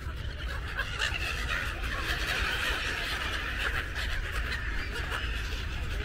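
A large flock of gulls calling all at once: many overlapping, laughing, squealing cries in a continuous chatter.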